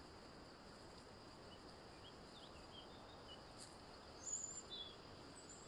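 Near silence: faint background hiss with a steady high-pitched tone and a few faint, short high chirps, a little louder about four seconds in.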